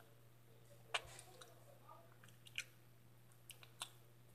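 Faint chewing of crunchy hot Cheetos, with a few short, sharp crunches, the loudest about a second in.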